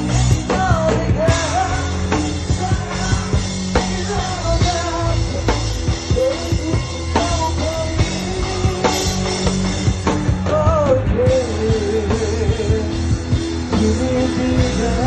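Rock band playing live: a drum kit keeping a steady beat under heavy low bass notes, with a singer's voice wavering and gliding over the top.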